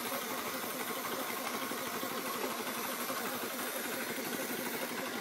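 A small engine running steadily at an even speed, with a steady hiss over it.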